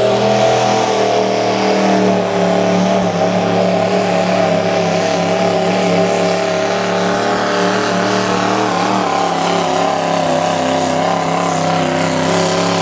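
Chevrolet Silverado pickup's turbo diesel engine at full throttle under heavy load, dragging a weight-transfer pulling sled, held at high revs in one loud, steady note. A high whistle climbs during the first second.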